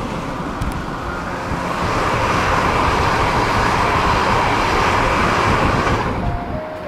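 E3 series Yamagata Shinkansen train passing close by, a loud, even rush of wheels on rail and moving air that swells as it comes alongside and cuts off suddenly about six seconds in.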